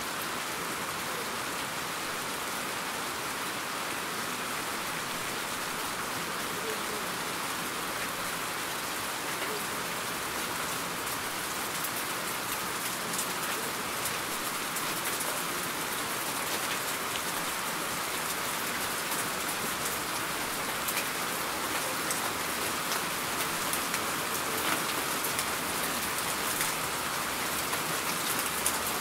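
Steady rain falling, a dense even hiss. From about halfway through, single drops patter more distinctly.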